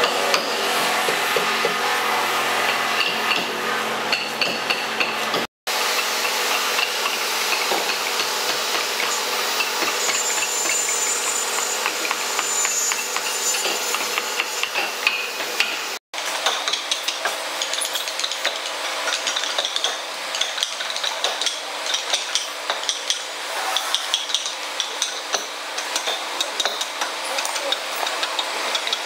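Small hand carving chisel cutting and scraping into a wooden blank held in a vise: a dense run of small scratchy clicks over a steady hiss. The sound cuts out completely twice, for a split second each time.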